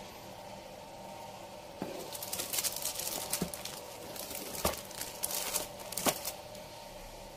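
Plastic packaging crinkling and tearing as it is handled for a few seconds, with a couple of sharp clicks, over a faint steady hum.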